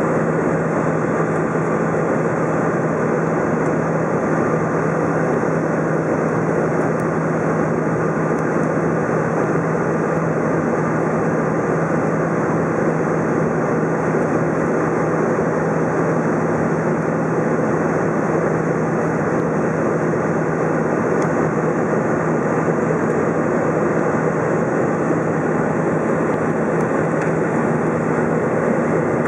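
Steady cabin noise of an Airbus A320 in flight, heard from a window seat over the wing: engine drone and rushing air with a steady low hum.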